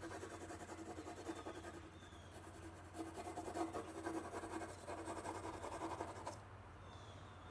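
Coloured pencil scratching across paper in quick shading strokes. It is busiest from about three seconds in and stops a little after six seconds.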